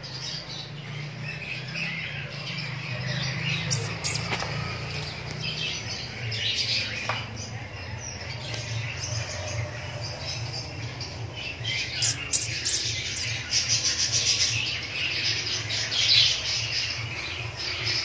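Many caged small birds chirping and squawking together in a continuous chatter, over a steady low hum.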